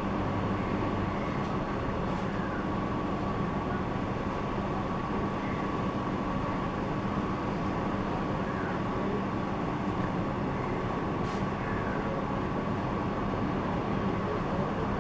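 Steady background hum and rumble with a constant high tone running through it, even in level throughout.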